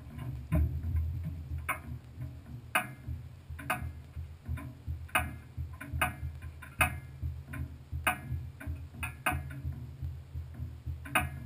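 Irregular light ticks, about one or two a second, over a low, unsteady rumble, from the stationary trophy truck.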